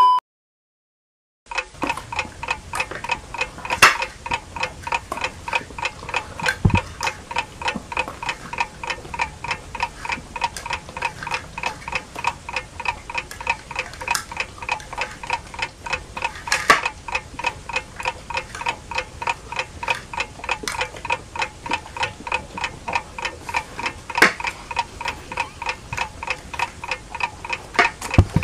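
Clock ticking sound effect: quick, even ticks that start about a second and a half in and run on steadily, counting down a timed eating challenge.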